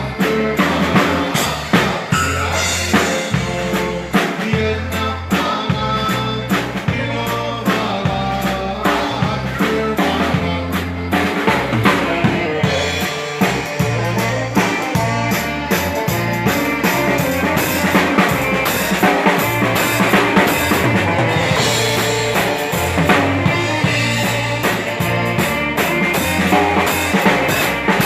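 Texas Czech dance band playing live: a drum kit keeps a steady beat under sustained instrumental notes and a pulsing bass line.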